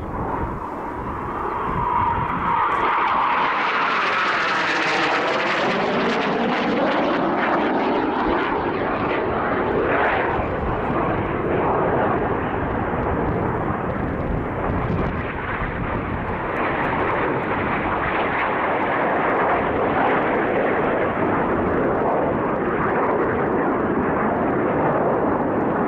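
Aermacchi MB-339 jet trainers of the Frecce Tricolori, single-engine turbojets, passing low overhead in formation. Their jet noise is a continuous rushing roar, with a sweeping, phasing pitch in the first several seconds as they go over.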